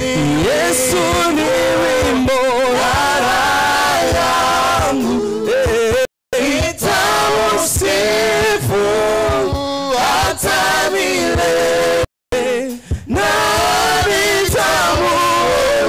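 A man's voice singing a worship chant with long held notes, with other voices joining in. The sound cuts out completely for a moment twice.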